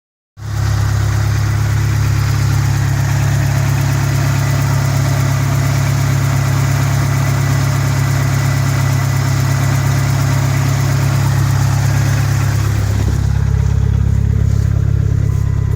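1991 Dodge Spirit ES's 2.5-litre turbocharged four-cylinder engine idling steadily, running again now that its no-start fault has been traced to the fuel pump.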